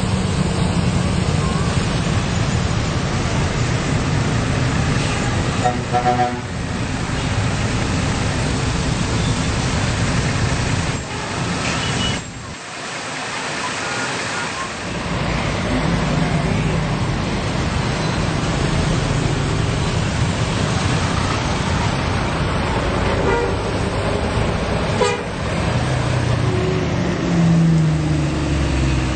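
Road traffic rumbling by, with a bus sounding its multi-tone musical 'telolet' air horn in short pulsing bursts.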